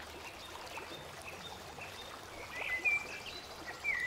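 A bird chirps in the background, a few short gliding calls, the clearest about two and a half seconds in and again near the end, over a steady faint hiss.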